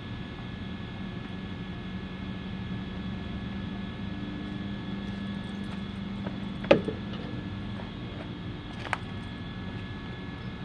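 Steady mechanical hum with a sharp metal clink about two-thirds of the way through and a lighter clink about two seconds later, typical of hand tools and parts knocking together during brake caliper work.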